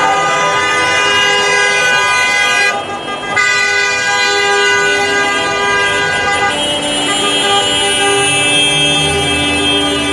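Many car horns honking together in celebration, several steady tones held and overlapping, with a short break about three seconds in.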